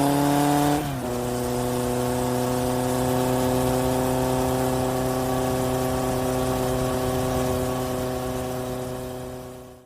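Dubbed-in car engine sound effect: an even engine note that climbs slightly, drops in pitch about a second in as if shifting gear, then holds steady and fades out at the very end.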